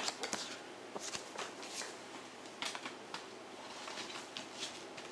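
Paper CD inserts and packaging being handled: soft, irregular rustling in short bursts with a few light clicks.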